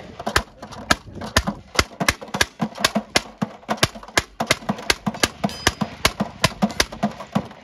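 Replica M1862 .58-calibre Gatling gun being hand-cranked and firing a steady rapid string of sharp reports, roughly four or five a second, that stops right at the end.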